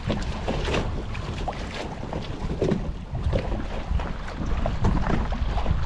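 Wind buffeting the microphone over lapping water, with scattered light knocks and clatter of fishing gear against the kayaks.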